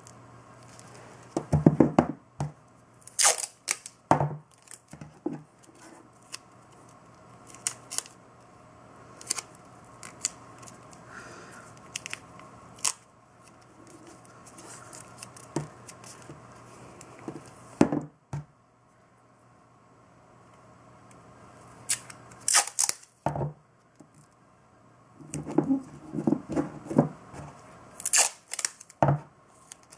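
Masking tape being pulled off the roll and torn into short strips, with crinkling and rubbing as it is pressed around a small plastic pump block. It comes in scattered bursts with quieter handling between, loudest about two seconds in and in a cluster near the end.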